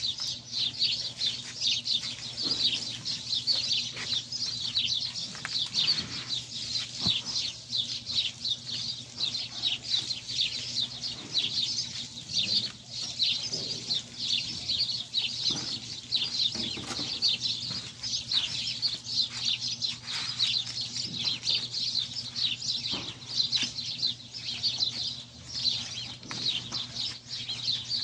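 A flock of small birds chirping continuously, a dense high chatter of many quick calls, over a steady low hum.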